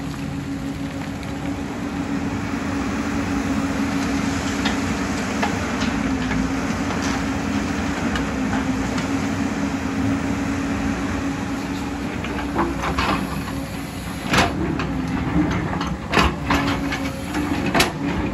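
JCB crawler excavator's diesel engine running steadily under load as it digs and swings, with a steady engine tone. In the last few seconds several sharp clanks and knocks ring out as the steel bucket works against rock.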